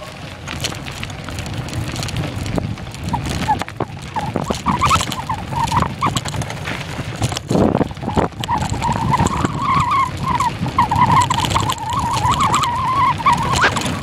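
Mountain bike riding down a rough trail: the tyres rumble and the bike rattles and knocks over the ground. A wavering squeal from braking comes and goes from about three seconds in and is strongest in the second half.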